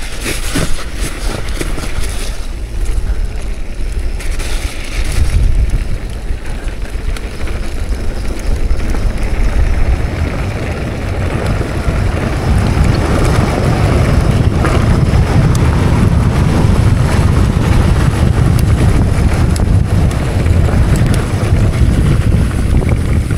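Mountain bike riding down a rough trail: wind rushing over the camera microphone, with knocks and rattles from the bike early on; the low rush grows heavier about halfway through.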